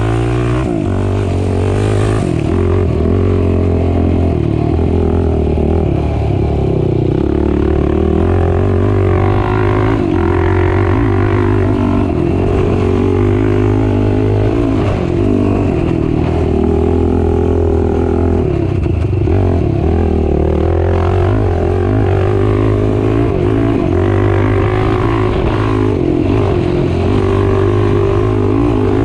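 Racing ATV engine running hard and continuously, its pitch rising and falling as the throttle is worked.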